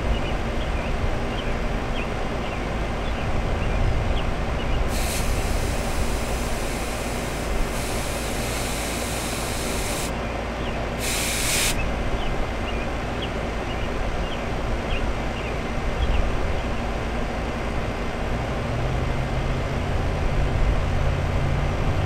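R-22 refrigerant charging hose being purged at the gauge manifold: a hiss of air and gas starts about five seconds in and lasts about five seconds, then a short second hiss follows about a second later, bleeding the air out of the hose before charging. Under it runs the steady noise of a Trane central air condensing unit.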